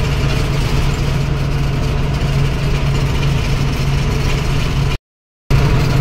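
Truck engine running steadily under way, heard from inside the cab as a low hum with road and cab noise. The sound cuts out completely for about half a second near the end.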